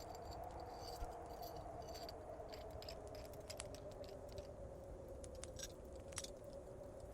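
Wood fire crackling with scattered sharp pops, over the steady howl of storm wind.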